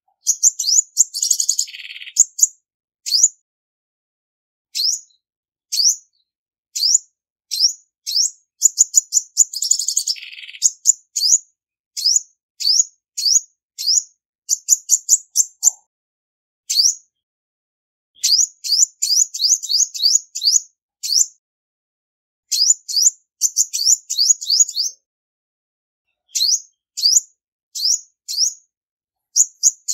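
Female olive-backed sunbird calling: short, high, sharp chirps that sweep upward, given singly or in quick runs of several. A longer falling note comes about a second in and again about ten seconds in.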